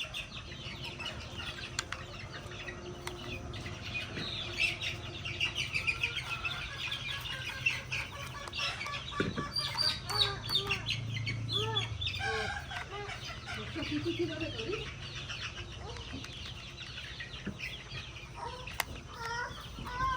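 Chickens clucking amid many rapid high chirps, over a low steady hum.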